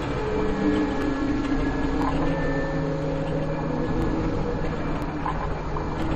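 Dark ambient drone: a steady rumbling noise with low held tones that shift every second or two.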